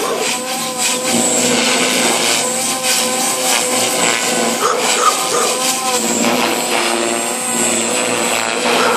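JR Forza 450 electric RC helicopter in flight: the 3,500 kV motor gives a high steady whine over the buzz of the spinning rotor blades, and the pitch rises and falls as it manoeuvres.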